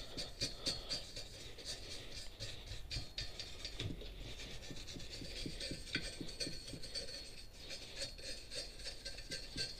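Hand wire brush scrubbing a welded steel frame: quick back-and-forth rasping strokes, about three or four a second.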